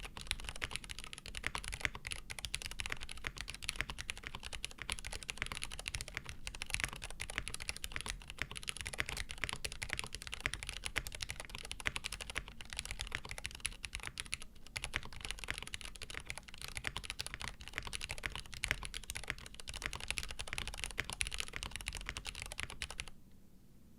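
Fast continuous typing on a Frog TKL mechanical keyboard with lubed Cherry Nixie switches on a POM plate and GMK keycaps: a dense stream of soft keystroke clacks, stopping abruptly about a second before the end.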